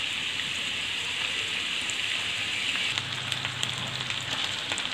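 Chopped onions frying in hot oil in a pan, giving a steady sizzle.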